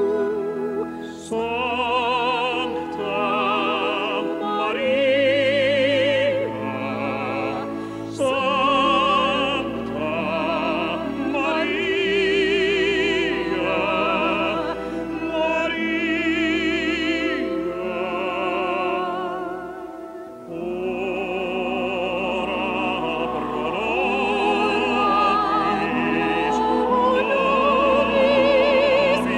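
Operatic solo singing with a wide vibrato over orchestral accompaniment, the voice pausing briefly about two-thirds of the way through before the next phrase.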